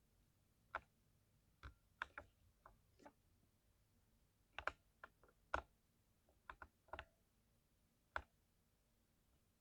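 Mechanical keyboard keys pressed one at a time, giving about fifteen separate sharp keystroke clacks at irregular intervals, some in quick pairs, with no typing near the end.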